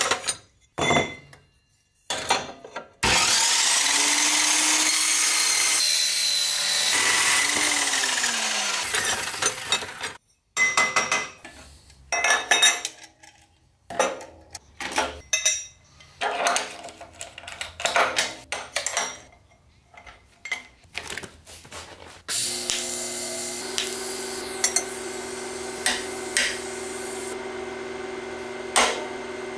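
A metal chop saw cuts through a bent metal exhaust tube for about six seconds, and its blade then spins down with a falling pitch. Clinks and knocks of metal tube pieces being handled follow. About two-thirds of the way in, a steady hum sets in.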